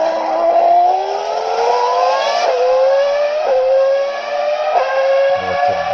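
Ferrari Formula 1 naturally aspirated V10 engine at high revs, its high-pitched note climbing through the gears, with quick upshifts about two and a half, three and a half and nearly five seconds in.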